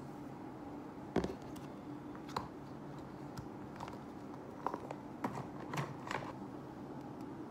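Light clicks and taps of a small plastic tub being picked up and handled on a table, the sharpest about a second in and several more close together about five to six seconds in, over a faint steady hum.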